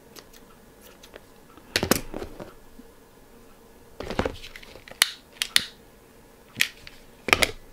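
Scissors snipping through nylon blind cord, the scissors set down, then a butane utility lighter clicked to light. A scattered series of sharp clicks and small knocks over several seconds.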